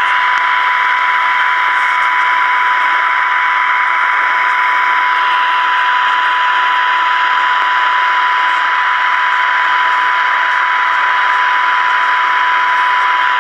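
Transistor radio speaker giving a steady high-pitched test tone over a strong hiss. It is receiving a modulated signal as its 455 kHz AM IF transformers are tuned during alignment.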